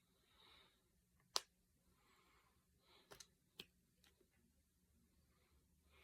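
Finger knuckles cracking: one sharp pop about a second and a half in, then a quick pair of smaller pops about three seconds in and another shortly after.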